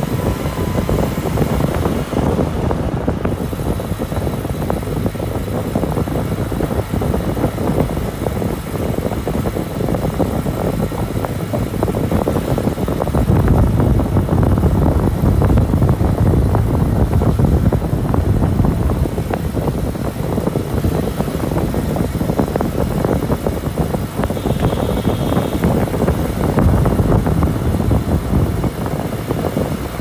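Van driving along a narrow road: steady engine and road noise with air rushing past the open side window, louder about halfway through.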